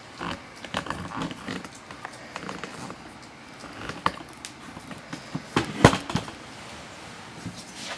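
A poodle puppy lapping and snuffling at a plate of soft food, then a few sharp knocks from the camera being handled, the loudest a little before six seconds in.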